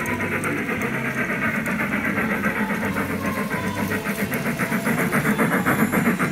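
Large-scale garden model train rolling past on its outdoor track, the wheels clicking rapidly and evenly over the rails, getting a little louder near the end.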